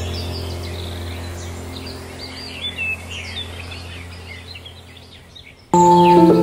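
Birds chirping over a low steady drone, fading out; about five and a half seconds in, calm music with sustained tones starts abruptly.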